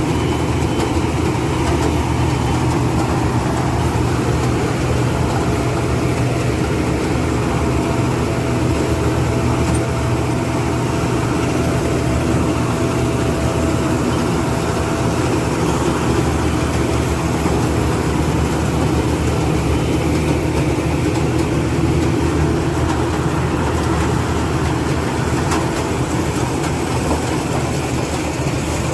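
Rice combine harvester running steadily, its engine giving an even, unbroken drone.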